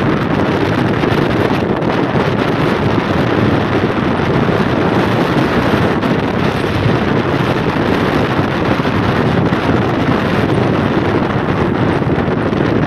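Steady wind rumble on the microphone of a phone held at the window of a car driving along a dirt track, with the car's running noise underneath.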